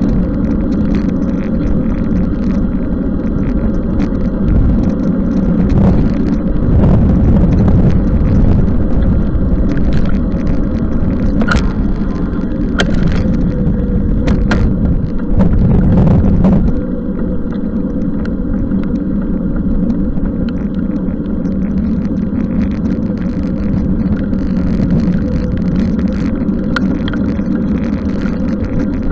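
Steady rumbling noise of riding a bicycle in the rain, with a scatter of sharp clicks and knocks in the middle. The noise drops a little in level about two-thirds of the way through.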